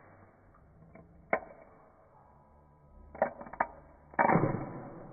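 Aluminium can of hard seltzer being opened: a few sharp clicks of a fingernail catching the ring-pull tab, then the can cracks open with a pop about four seconds in and a fizzing hiss that fades over about a second.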